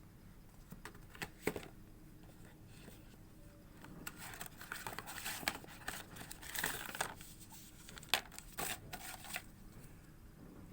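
Phone packaging being handled and opened by hand. A few sharp clicks, then a couple of seconds of rustling about halfway through, then more clicks near the end.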